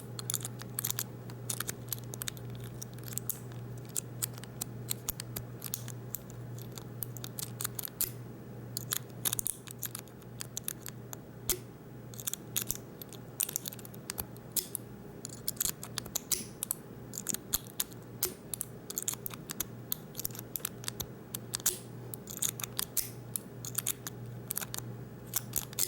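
A rake pick scraping and clicking in the keyway of a Master Lock No. 5 laminated pin-tumbler padlock as it is raked open. The plug rattles in the lock, making rapid, irregular small metallic ticks and scratches in quick clusters, over a steady low hum.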